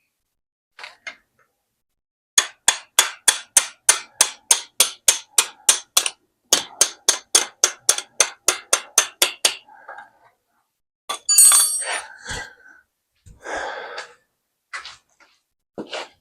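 Hand-tool work on a dirt bike's engine mounting hardware: two runs of rapid, even metal taps or clicks, about six a second, then a loose metal part clattering and a scrape.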